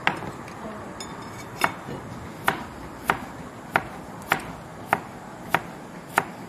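Kitchen knife chopping stalks of umbut lalis (palm heart) on a plastic cutting board: about nine sharp knocks of the blade on the board, evenly spaced a little over half a second apart.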